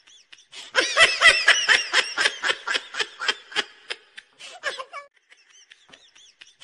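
High-pitched snickering laughter in a rapid string of pulses. It starts about a second in and breaks off near four seconds, with a shorter burst around five seconds.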